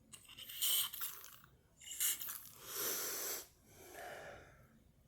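A person blowing their nose, clearing out a congested nose: four forceful blows, the third the longest and the last one weaker.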